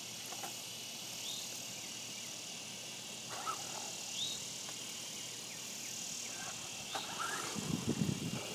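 Quiet steady background hiss with a faint short rising chirp about every three seconds.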